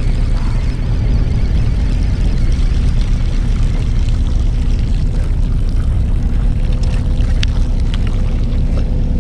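Fishing boat's engine running steadily, a low drone with a constant hum. A few light clicks near the end.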